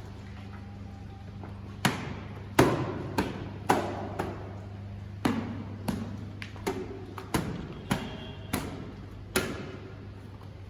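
A cloth slapped repeatedly against a scooter's body panels to beat off dust: about a dozen sharp, uneven thwacks, over a steady low hum.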